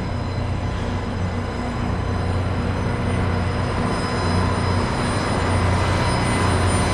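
Loram rail grinder train's diesel power car running as it approaches, a steady low engine note growing gradually louder.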